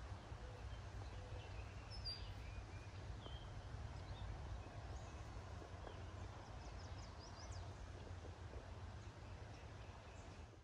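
Faint outdoor ambience: scattered short bird chirps, most of them about five to eight seconds in, over a low steady rumble.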